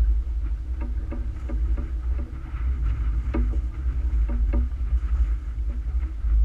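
A boat under way on the water, heard as a steady low rumble, with plucked guitar music playing over it.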